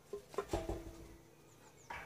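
Light metallic knocks and clicks as a large steel circular saw blade is handled on its arbor shaft, one followed by a short ringing tone, with a sharper clank near the end.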